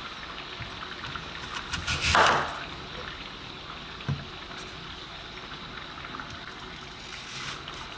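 A chef's knife slicing through a crisp apple, one loud crunching cut about two seconds in, then a short low knock on the plastic cutting board about four seconds in. Near the end the blade starts crunching into an apple half.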